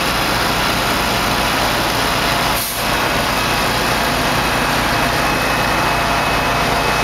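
Small gasoline engine of a portable hydraulic power unit for rescue tools running steadily at a constant speed.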